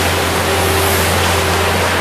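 Elgin Broom Badger mechanical street sweeper at work: a steady low engine hum under a loud, even rushing noise from its sweeping gear.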